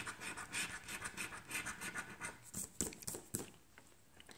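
A coin scratching the coating off a scratch-off lottery ticket in quick rasping strokes, about four or five a second. The scratching stops about two and a half seconds in, followed by a few light clicks.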